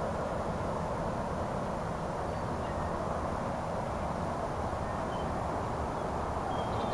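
Freight train of flat cars loaded with logs rolling past at close range: a steady rumble of wheels on the rails.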